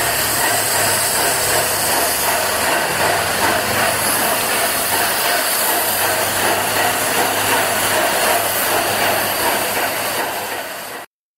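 Paint sprayer spraying steadily, a loud even hiss over a faint low hum. It stops abruptly near the end.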